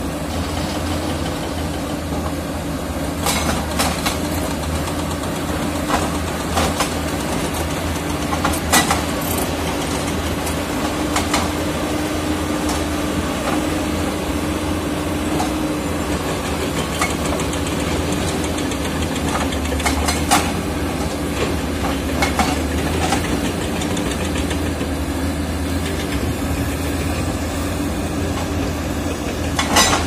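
Komatsu D85ESS crawler bulldozer's diesel engine running steadily, with a few short, sharp clanks.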